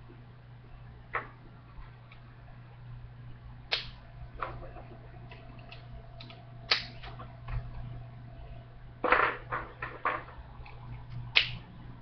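Plastic LEGO pieces clicking and snapping as they are handled and fitted together: scattered sharp clicks, with a quick run of them about nine seconds in, over a steady low electrical hum.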